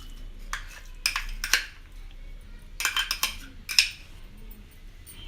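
A metal spoon clinks and scrapes against a steel kadhai and utensils in a few short bursts while ghee is added to the hot pan.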